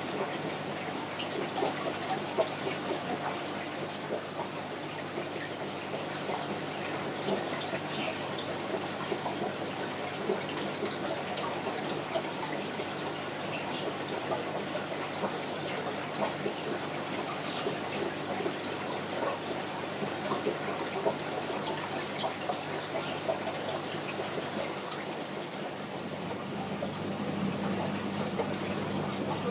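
Aquarium water trickling and bubbling steadily, with many small drips and splashes, over a low steady hum that grows a little louder near the end.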